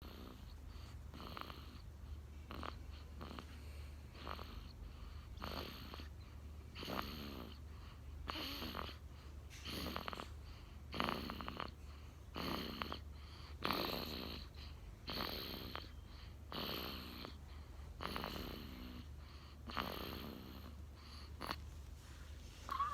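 A sleeping baby snoring, with soft raspy snores on each breath about every second and a half.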